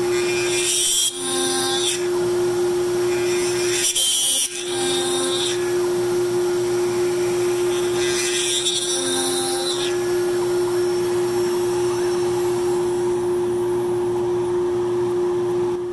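CNC router's 3 hp spindle running with a steady whine while it peck-drills a 2x4 with a 7/16-inch twist drill at 800 RPM: three bursts of cutting noise as the bit plunges in and retracts to clear chips, then only the spindle's steady whine for the last several seconds.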